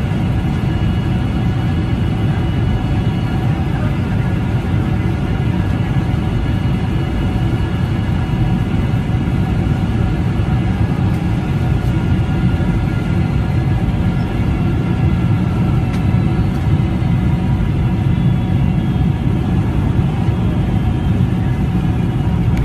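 Boeing 747's jet engines during landing: a steady low rumble with faint steady whining tones above it.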